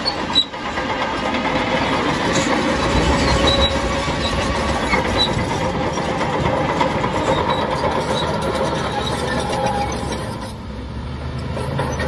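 Crawler bulldozer working: its diesel engine running under load with the clatter of steel tracks, dropping off briefly about ten seconds in.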